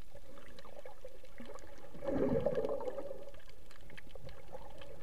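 Muffled underwater sound picked up by a submerged camera: a steady water hiss with faint scattered clicks, and a louder gurgling surge of water about two seconds in that lasts under a second.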